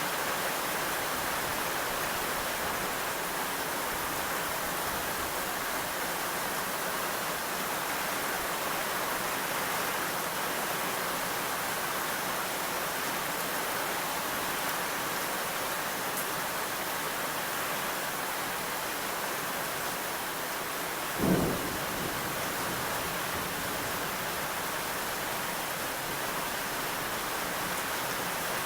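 Steady, even rain, with one short low boom of thunder about three quarters of the way through.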